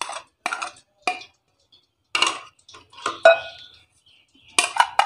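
A plate knocking and scraping against the rim of a glass mixing bowl as spices and cut potato are tipped in: a handful of separate clinks and scrapes, the loudest about three seconds in and near the end.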